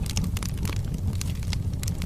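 Wood fire burning in a fireplace: a steady low rumble of the flames with many quick, irregular crackles and pops from the burning logs.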